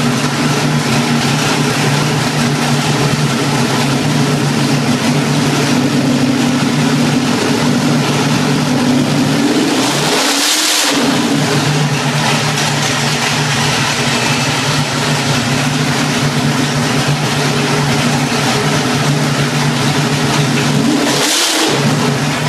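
A 1001 cubic inch (16.5 litre) V8 street engine idling steadily on an engine dyno, blipped to a brief rev about ten seconds in and again near the end, settling back to idle each time.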